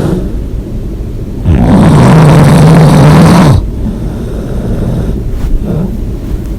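A person snoring loudly: one long snore with a steady low buzz starts about a second and a half in and lasts about two seconds, between quieter breaths.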